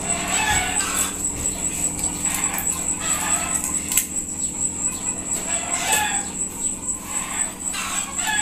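Fowl clucking in short calls about once a second, over a steady high-pitched whine, with one sharp click about four seconds in.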